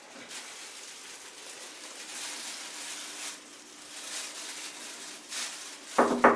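Soft rustling, like a plastic bag being handled, then near the end two or three quick knuckle knocks on a door, each with a short hollow ring.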